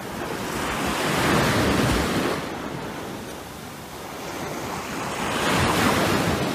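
Ocean surf washing up a sandy beach, the wash of the waves swelling twice, at about a second in and again near the end.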